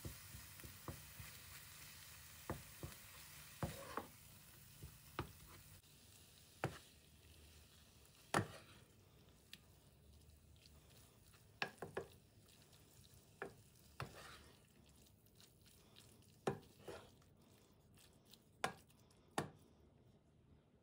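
Knife knocking on a wooden cutting board in sparse, irregular strokes, about twenty quiet knocks and taps over a faint hiss.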